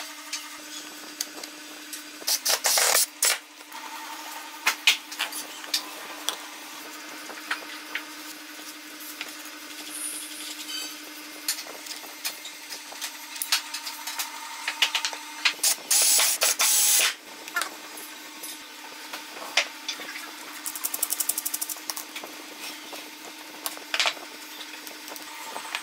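Wooden jig parts being handled and assembled: plywood pieces knocking and tapping together and a nut worked along a threaded rod, with many separate clicks. Two short stretches of a power tool, about two seconds in and again about sixteen seconds in, and a quick run of clicks about twenty-one seconds in, over a steady low hum.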